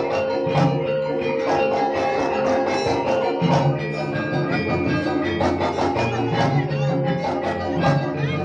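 Banyumas gamelan music for ebeg dance: struck keyed instruments ring out over a steady beat of drum and percussion strokes.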